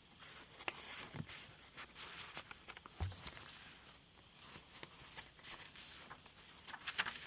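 Paper rustling and crinkling in short, irregular clicks as junk journal pages and a paper tag are handled, with a soft thump about three seconds in.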